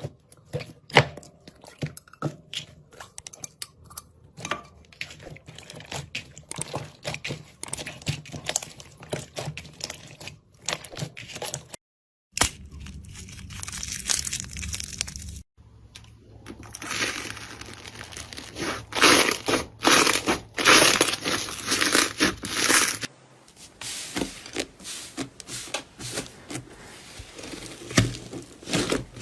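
Slime being squeezed and pressed by hand, with dense crackling and popping clicks and crinkly squelches. It cuts off abruptly a few times as one clip gives way to the next.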